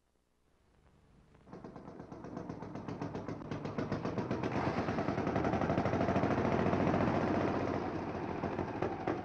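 Engine of an early open automobile running with rapid, even putt-putt exhaust beats, coming in about a second and a half in and growing louder as the car arrives, loudest about two-thirds of the way through before easing slightly.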